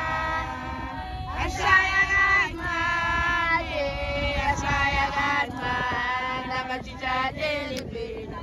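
A group of female voices singing a Zulu song together, holding long notes that slide in pitch, with a low rumble underneath.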